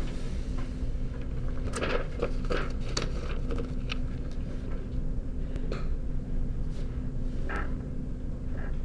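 Sheets of paper being handled and turned over, with scattered short crinkles and taps over a steady low hum.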